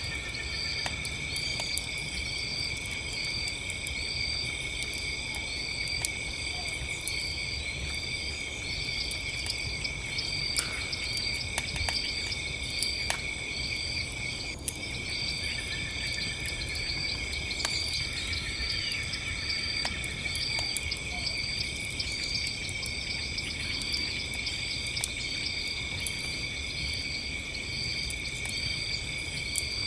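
Crickets chirping about once a second over a steady high insect trill, with a campfire crackling and popping in scattered sharp clicks over a low rumble.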